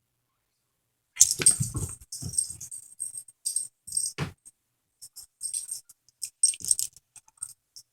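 Dog collar tags jingling in irregular bursts as dogs romp and tussle over a toy, with a few dull thumps about a second in and again near the middle.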